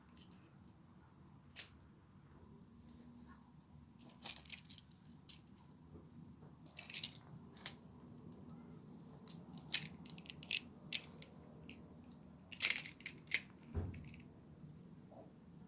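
Plastic magnetic building tiles clicking and clacking as squares and triangles are snapped together and handled: scattered sharp clicks, some in quick little clusters.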